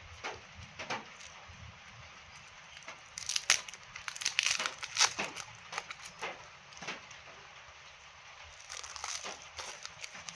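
Packaging crinkling and rustling, with some tearing, as plants are unpacked. The crackling comes in uneven bursts: a few at first, a dense run in the middle, and more near the end.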